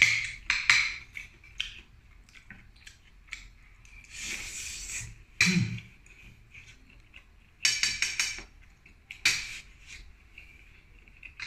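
Scattered clicks and clinks of a fork and seafood shells against an enamel pan as mussels and shrimp are picked apart by hand, with a brief rustling hiss about four seconds in.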